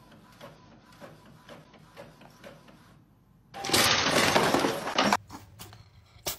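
A loud crash and clatter of things being knocked over, lasting about a second and a half, comes about three and a half seconds in after a few seconds of faint, even ticking.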